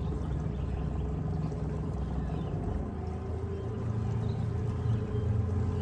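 A 175 hp outboard motor running as the boat moves along, with a steady low engine hum; it grows a little louder and steadier in pitch from a little past halfway as the throttle comes up.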